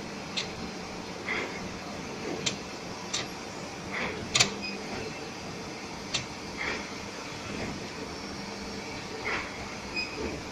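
Tea bag packing machine running: a steady hum broken by sharp, irregular mechanical clicks and small squeaks, the loudest click about four and a half seconds in.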